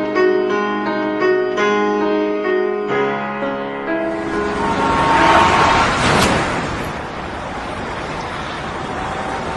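Instrumental passage of a Mandarin pop ballad recording: piano notes, then about four seconds in a swelling wash of noise that peaks and settles into a steady hiss.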